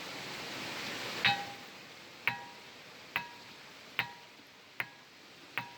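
Batu Sada ringing stone struck six times at a steady pace, about one hit a second. Each hit is a sharp clink that rings on briefly with a clear, bell-like tone.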